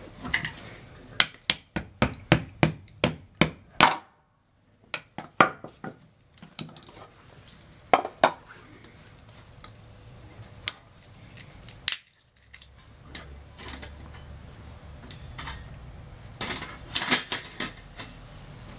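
Irregular sharp metallic clicks and clinks from a wire grill grate being handled on a stainless-steel wood-gas camp stove. There is a quick run of them at the start, a few scattered ones, and another quick run near the end as the grate is lifted off the stove.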